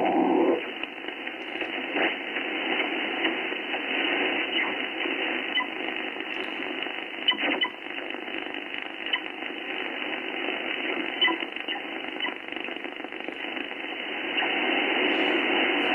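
Icom IC-7610 HF receiver's audio while tuning up the 20 m band: a steady hiss of band noise, heard through the radio's narrow receive filter, with faint short beeps and clicks. A louder, lower-pitched part of the noise drops away about half a second in, and the noise swells again near the end. The hiss is the interference noise floor, about S4, that the operator is troubleshooting.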